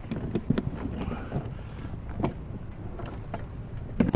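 Porta-Bote folding polypropylene dinghy hull being pried open by hand: scattered knocks and clunks, with one louder knock near the end, over a steady background of wind.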